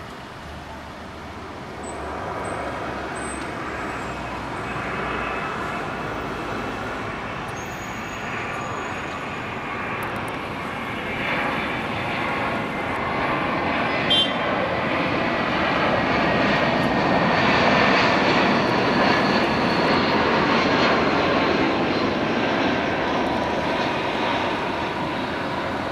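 Airbus A320-233 with IAE V2500 turbofans on final approach, gear down, passing low overhead: the jet noise builds to its loudest about two-thirds of the way through and eases slightly afterwards, while a whine slides down in pitch as the aircraft goes by. A short click sounds about halfway through.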